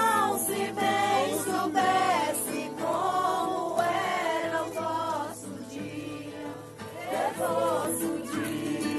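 Several voices singing a song together in phrases with short breaks, over a steady low accompaniment.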